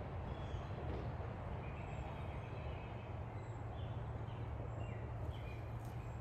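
A steady low rumble runs throughout, with small birds chirping now and then over it.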